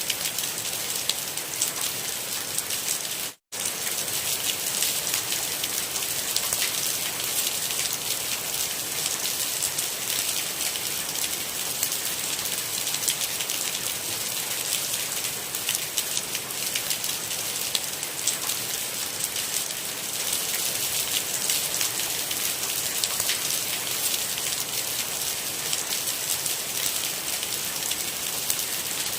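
Steady rain: a dense hiss of falling water with the fine ticking of individual drops. The sound cuts out for a split second about three and a half seconds in.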